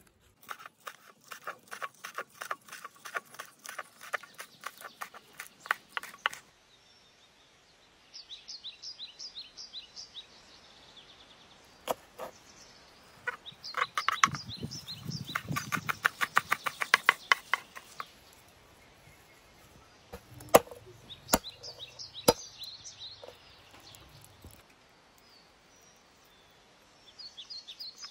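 Kitchen knife chopping spring onions and leafy greens on a wooden cutting board, in two quick runs of strokes followed by a few single cuts. Birds chirp in short bursts between the runs.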